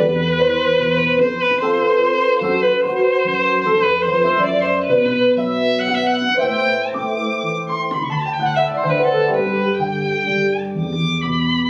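Violin playing a melody over low, sustained notes from an accompanying instrument, with a falling run of notes a little past the middle.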